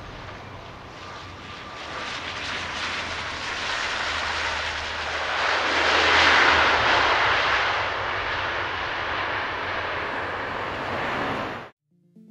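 Engine noise of a passing airplane: an even noise with no clear pitch that builds to its loudest about six seconds in, stays strong, then cuts off suddenly near the end.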